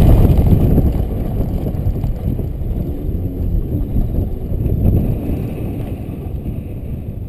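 Car engine and tyre rumble with wind buffeting on an outside-mounted camera, fading steadily as the car slows down at the end of an autocross run.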